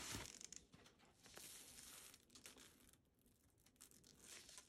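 Faint rustling and crinkling of protective plastic wrapping being pulled off a leather bag's handle, loudest at the start and coming in a few short bursts after.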